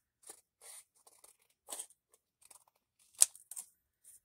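Scissors snipping through patterned scrapbook paper in a series of separate short cuts, with one sharp click about three seconds in.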